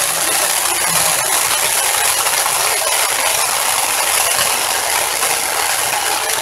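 Firework ground fountain burning with a steady loud hiss and dense crackle; its sparks are molten bismuth from a titanium and bismuth trioxide mix that cracks as it burns.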